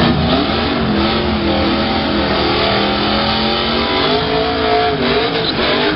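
Fourth-generation Chevrolet Camaro's engine revving up and held at high revs while its rear tyres spin and smoke in a burnout. Near the end the revs waver and climb again.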